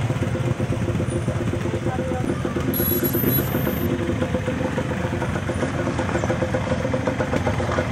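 Quad bike (ATV) engines running steadily at low speed, a continuous motor drone.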